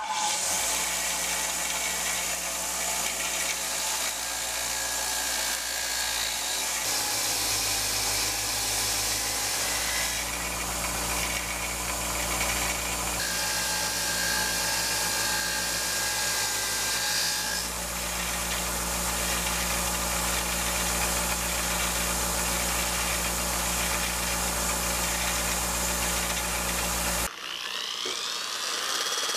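A 6-inch bench grinder is switched on and runs with a steady motor hum while its wire wheel scours rust off a steel hatchet head, the sound shifting as the head is pressed and moved against the wheel. Near the end it cuts off and a DeWalt sander spins up with a rising whine.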